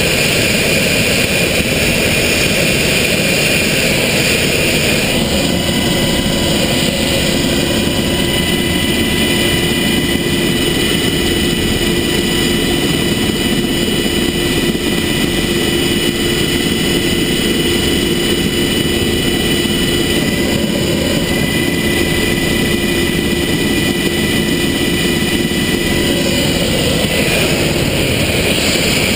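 Military helicopter's turbine engines and rotor running, heard from inside the cabin: a loud, steady whine over a dense rushing noise. Some of the whine tones drop out a couple of seconds before the end.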